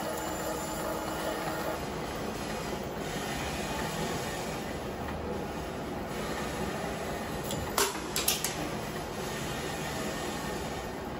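CNC lathe running with a large steel workpiece spinning: a steady machining noise, with a steady tone from the cut that stops early on, and a few sharp metallic knocks close together about eight seconds in.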